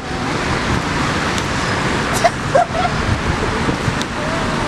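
Steady rushing outdoor city noise: road traffic and wind, with a few faint short tones a little over two seconds in.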